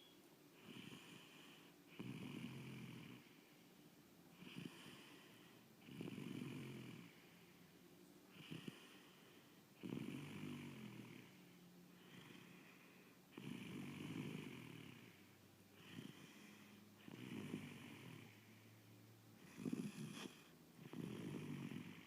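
Steady snoring in slow sleep breathing: a rasping snore about every two seconds, alternately louder and softer.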